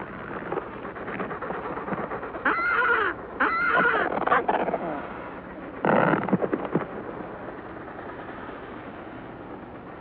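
A skua and Adélie penguins calling as the skua attacks penguin nests: two runs of quick repeated calls about three and four seconds in, then a louder cry about six seconds in, over a steady low hiss.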